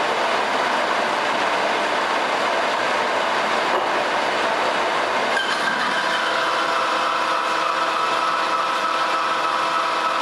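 American Pacemaker engine lathe taking a heavy roughing cut on a steel blank with a carbide CNMG insert, giving a steady cutting noise. About five seconds in, a steady whine joins it, dipping slightly in pitch and then holding.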